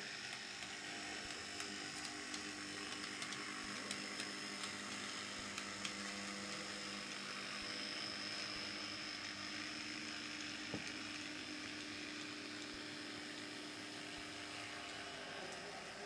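Small electric drive motor of a 00-scale model tram (Halling drive unit) running steadily, giving a faint hum and a thin high whine, with a few light clicks, one louder about eleven seconds in.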